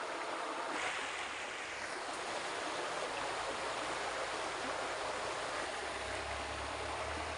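Steady rush of running water in a rocky hill stream.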